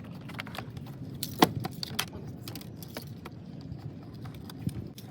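Scattered light clicks and metallic clinks, with one sharper click about a second and a half in, from hand tools and small screws being handled while taking the air filter box apart.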